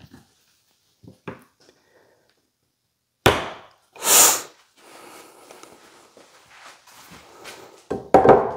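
Wooden shims and clamps being set under a walnut slab: a sharp knock about three seconds in, a short hiss a second later, faint scraping and handling, then a louder clatter near the end.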